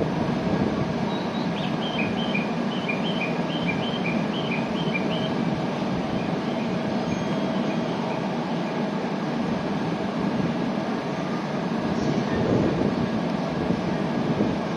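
Steady hum of a Shinkansen train standing at a station platform. Between about two and five seconds in, a quick run of short high chirps alternates between two pitches.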